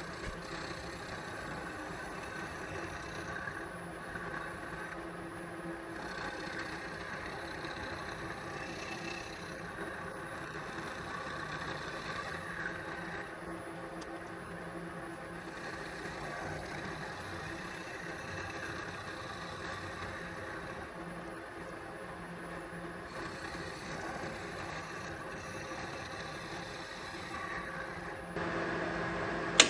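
Bridgeport milling machine running, its spiral end mill face-milling a worn brass bushing: a steady spindle hum with the hiss of the cut, getting louder near the end. The cut is taking off the channel that a steel shaft has worn into the bushing.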